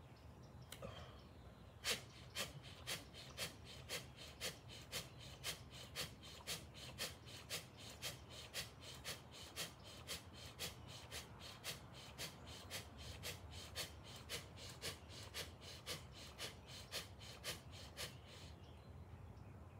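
A man doing bhastrika/kapalabhati pranayama: a long run of rapid, forceful breaths, about two a second. The breaths start about two seconds in and stop a couple of seconds before the end.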